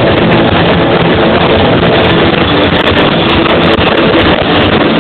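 Live noise-rock band playing loud: distorted electric guitars, bass and drums blurring into a dense, unbroken wall of sound, picked up close by an overloaded camera microphone.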